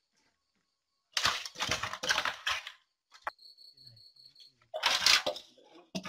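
Banana leaves rustling and crackling as hands press and pat a mound of minced chicken and herb filling on them, in two spells with a click in between. A cricket trills steadily in the background.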